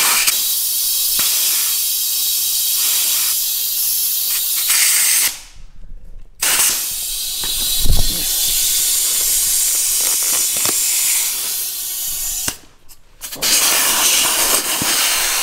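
Compressed air hissing from an air chuck into a tubeless scooter tire while its bead is being seated, in three long blasts with short gaps between them. A single loud thump comes about eight seconds in.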